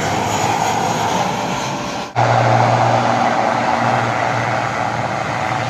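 Jet airliner engines on final approach, a steady noise. About two seconds in, the sound cuts to a twin-turboprop airliner on the runway, its engines and propellers running with a steady low hum.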